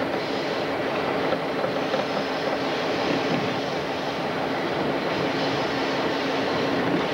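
Diesel locomotive under way, heard from aboard: a steady engine drone mixed with the even rumble and hiss of wheels on rail.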